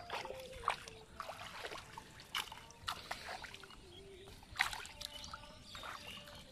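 Shallow water sloshing and splashing as a mesh ring net trap holding small fish is lifted and shifted in the water, with scattered sharp splashes and clicks.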